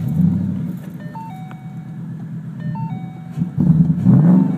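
2013 Mustang GT's 5.0-litre V8 starting up on a freshly flashed ECU tune, idling, then revved once about three and a half seconds in. The open-door warning chime dings over it.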